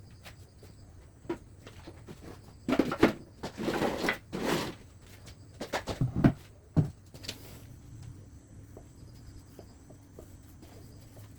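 Pieces of wood being handled: a run of scrapes and rubbing about three to five seconds in, then a few sharp wooden knocks just after six seconds, with scattered light clicks.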